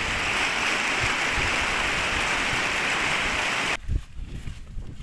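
Rushing mountain stream: a steady, loud rush of water over rocks. It cuts off abruptly about four seconds in, giving way to quieter open-air sound with a few low thumps.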